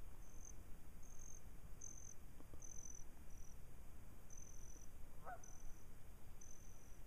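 Evening outdoor ambience: an insect gives a short, high chirp about once a second over a low rumble. About five seconds in there is one brief, faint call.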